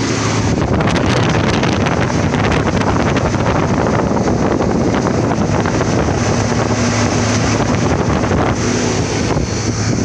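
Refrigeration condensing unit running: a steady compressor and motor hum under the rush of its fan's air, with the air buffeting the microphone.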